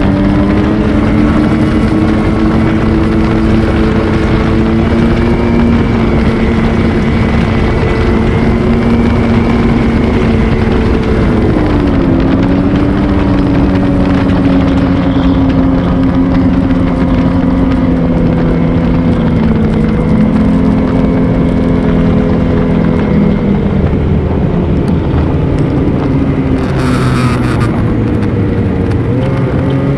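Ski-Doo Renegade XRS 850 snowmobile's two-stroke twin engine running under way at steady speed. Its pitch drops a little about twelve seconds in, eases lower again later, then rises near the end, with a short hiss shortly before.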